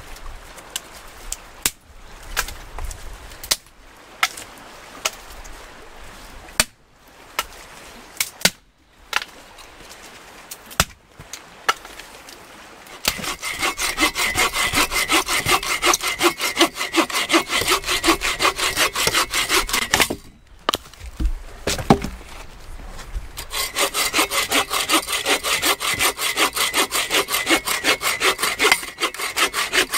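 A hand saw cutting firewood in quick back-and-forth strokes, in two runs with a short pause between, after some scattered knocks and clicks of wood being handled.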